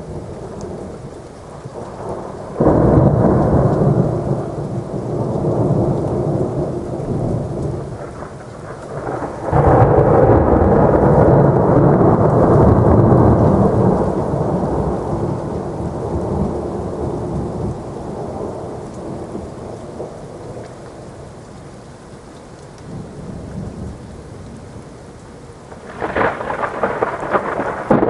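Thunderstorm: steady rain falling throughout, with three rolls of thunder that break out suddenly, a few seconds in, near the ten-second mark and near the end. The middle roll is the loudest and rumbles away over several seconds.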